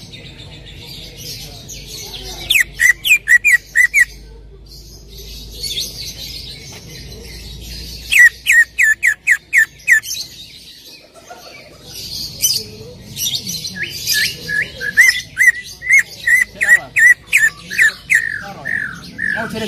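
Green leafbird (cucak ijo) singing: bursts of rapid, repeated down-slurred whistles, each burst a few notes long, mixed with scratchy chattering. Three bouts come about two seconds in, about eight seconds in, and a longer run from about twelve seconds to the end.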